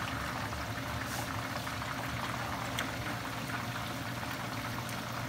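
Battered chicken deep-frying in pans of hot oil: a steady bubbling sizzle with small crackles throughout.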